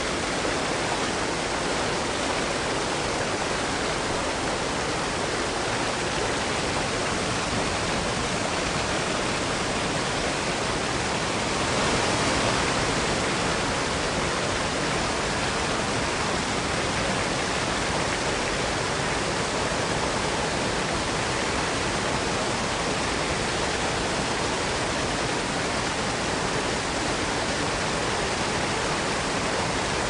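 Waterfall: a steady, even rush of falling water, swelling slightly about twelve seconds in.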